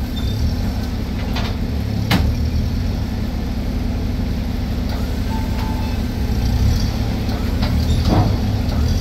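Toyota forklift engine running steadily under load as its forks lift and tip the bed of a loaded dump trailer. A single sharp click sounds about two seconds in.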